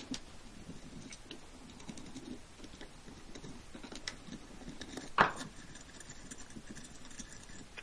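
Light, irregular clicks and ticks of a hand screwdriver backing out the small screws that hold the cartridge in a Pfister brass tub-and-shower rough-in valve, with one sharper click a little past five seconds in. The cartridge is coming out so that soldering will not damage it.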